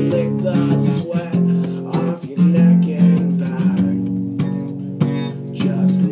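Acoustic guitar strummed in a steady rhythm of chords, about two strokes a second.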